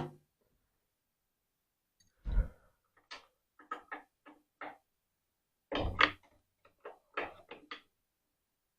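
Metal tools clicking and knocking in short irregular bursts as the carburetor mounting bolts are worked loose on a 1969 Rokon's engine. The louder knocks come about two and a half seconds and six seconds in.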